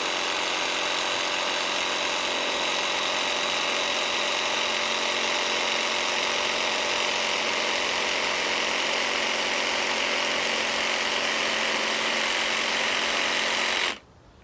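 Makita 12 V cordless jigsaw cutting through a thick piece of softwood with the orbital action off and a fast-cutting wood blade: a steady motor whine with the rasp of the blade. It stops suddenly near the end.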